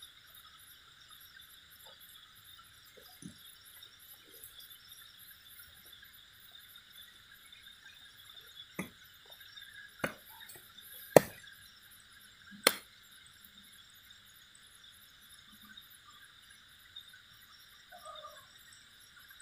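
Steady chorus of crickets and other night insects. Through the middle come four sharp clicks or snaps about a second apart.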